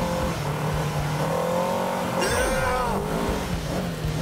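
UTV engines running and revving on a dirt track, with a brief cluster of falling, whistle-like sweeps about two seconds in.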